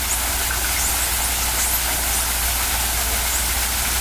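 A steady low hum with an even hiss over it, like machinery running. A few faint, short, high rising chirps come through it.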